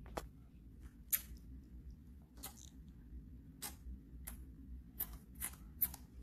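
Fingers handling the recording camera: about eight light taps and clicks at uneven intervals over a low handling rumble.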